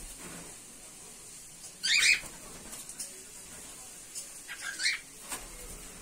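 Cockatiels calling: a few short calls, the loudest about two seconds in and two more close together near the end.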